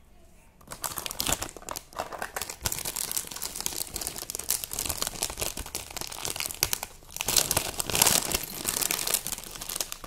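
Thin clear plastic packaging crinkling and rustling as it is handled, starting about half a second in, with a short lull about seven seconds in.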